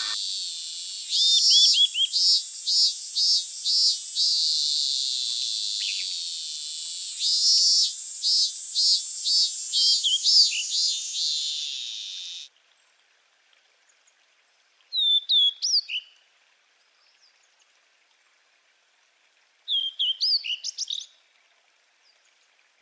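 Small birds chirping over a steady high-pitched hiss, which cuts off suddenly about halfway through. Then come two short bursts of quick chirps a few seconds apart, with near silence between them.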